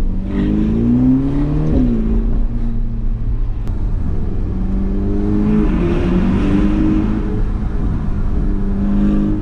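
Ferrari Portofino's twin-turbo 3.9-litre V8 heard from inside the cabin under acceleration. It rises in pitch and drops abruptly at an upshift a little under two seconds in, then pulls on at a steadier pitch with smaller rises and falls. A hiss of road and wind noise swells in the middle.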